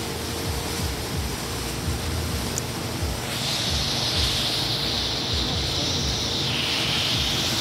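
Ryko SoftGloss Maxx rollover car wash running: a steady rush of water spray and spinning cloth side brushes. A higher hiss joins about three seconds in and dips slightly in pitch near the end.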